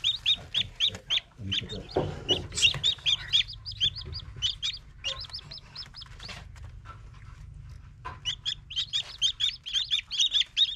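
Newly hatched chicks peeping: a brood of chicks giving many short, high peeps in quick succession. The peeps thin out through the middle and come thick and fast again near the end.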